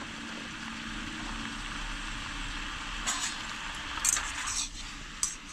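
Shrimp and mushrooms sizzling in a pan, a steady hiss, with a few scrapes and clinks of a utensil stirring from about three seconds in.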